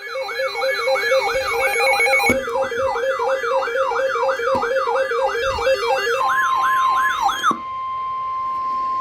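Several electronic alert sirens sound at once, a fast whooping sweep about three times a second over a two-tone warble, and cut off about seven and a half seconds in. From about six seconds in, a single steady high alert tone sounds on its own: the NOAA Weather Radio 1050 Hz warning alarm tone that precedes a warning broadcast.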